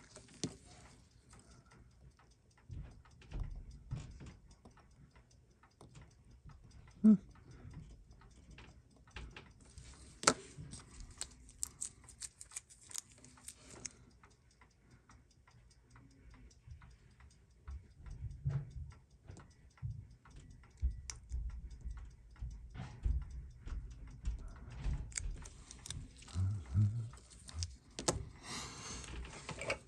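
Small clicks, taps and rubbing from hands and tools working on an open automatic watch movement in its case, scattered and irregular, with two sharper clicks about seven and ten seconds in.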